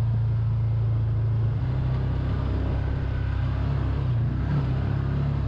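Side-by-side UTV engine running steadily under way, heard from the driver's seat. Its note shifts about a second and a half in.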